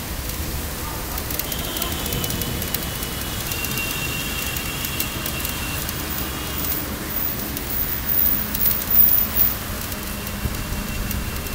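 Bicycle riding through standing floodwater on a paved path: a steady wash of tyre and water noise with low rumble, a thin high tone for a few seconds from about two seconds in, and some louder swells near the end.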